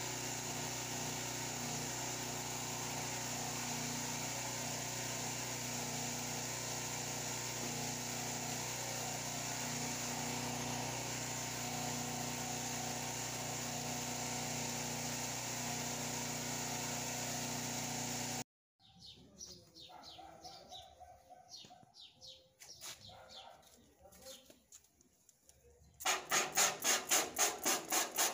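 A steady hiss with a low hum as water washes unexposed emulsion out of a screen-printing screen, cutting off abruptly. A quieter stretch with bird chirps follows, and near the end a hand spray bottle squirts water rapidly onto the screen, about four squirts a second.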